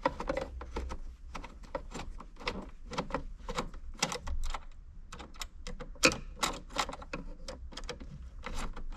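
Irregular clicks and taps of a screwdriver and hands working the screws that hold a car stereo unit in the dashboard, metal and plastic knocking lightly.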